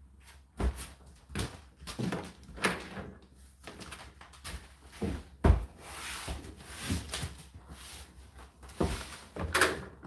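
Laundry being loaded by hand into a tumble dryer's metal drum: irregular knocks and thumps with fabric rustling between them, the sharpest knock about halfway through.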